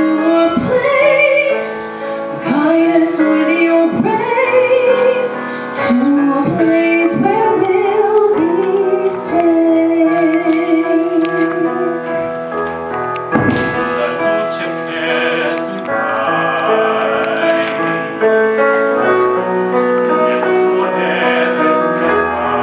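A woman singing through a handheld microphone, with vibrato and long held notes, over a steady instrumental backing; in the latter part a man's voice takes up the singing.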